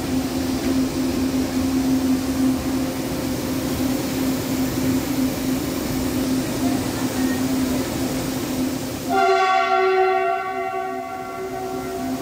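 Metro train standing at the platform with a steady electrical hum. About nine seconds in, a multi-tone train horn sounds for about three seconds.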